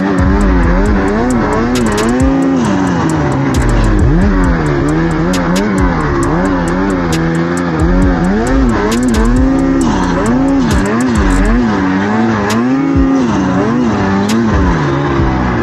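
Snowmobile engine running under constantly changing throttle, its pitch rising and falling every second or so as the sled is ridden through powder snow, with scattered sharp clicks.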